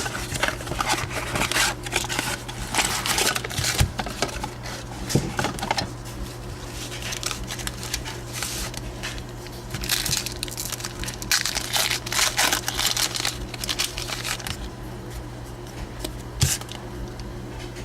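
Plastic wrapping and foil card packs crinkling and tearing as a blaster box of baseball cards is opened, in irregular bursts with a sharp click near the end, over a steady low hum.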